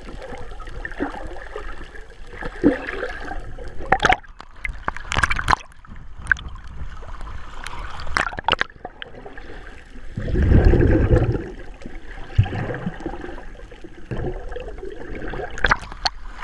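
Sea water sloshing, gurgling and splashing around a swimmer, heard from a camera at the waterline that dips in and out of the water. There are several short sharp splashes, and a heavy, deep rush of water about ten seconds in.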